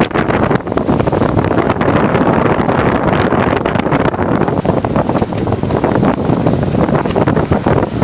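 Strong gusty wind buffeting the microphone: a loud, continuous rush with a fluttering, uneven level, from a winter windstorm with gusts near 50 mph.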